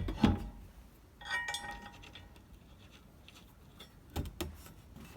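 Metal knocks and clinks of a Rugged Ridge heavy-duty spare tire carrier being hung on its tailgate bracket and its bolts handled, with one short ringing clink about a second in.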